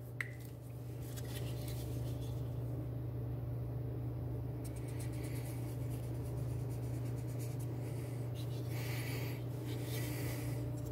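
Sharpie marker tip rubbing along a D2 steel knife bevel in short strokes around five seconds in and again near the end, inking the edge to check the sharpening angle. A steady low hum runs underneath.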